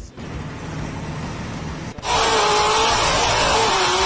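A steady low background noise, then about halfway a sudden switch to a loud machine running: a rushing noise with a slightly wavering whine.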